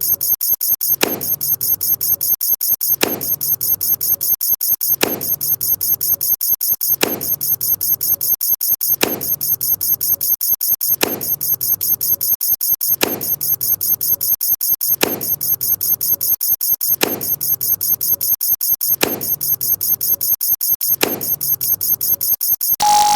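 Short sound-effect clips fired over and over in rapid succession, a high squeaky repeat many times a second, with a sharper hit and a low stepped sound recurring about every two seconds. The pattern breaks off just before the end.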